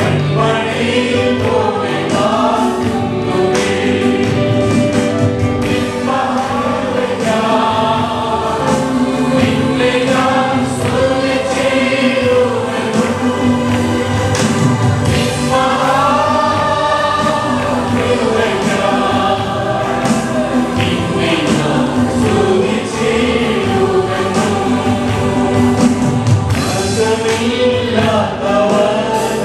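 A choir singing a gospel worship song with instrumental accompaniment.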